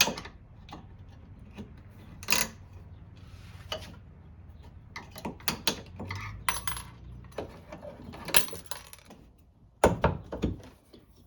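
Scattered metallic clicks and clinks, with a handful of sharper knocks, from hand work on a car's trunk gas struts: a flathead screwdriver prying out the strut's retaining clips and the strut being popped in and out of its mounts.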